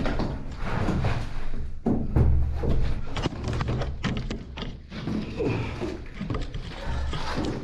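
Close handling noise from a body-worn camera as someone squeezes through a tight opening: low rumbling rubs, with many short knocks and scrapes against the surroundings.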